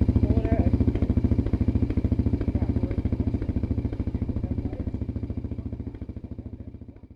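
ATV engine idling with a steady, even pulsing beat, fading out near the end.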